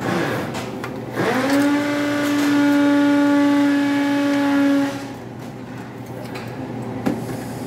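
A small electric motor spins up with a short rising whine, runs at a steady high pitch for about three and a half seconds, then stops; a single click follows near the end.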